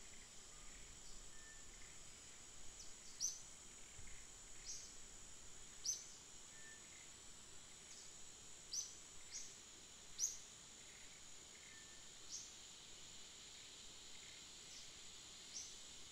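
Forest ambience: a steady high-pitched insect drone, with short high chirps repeating irregularly every second or two.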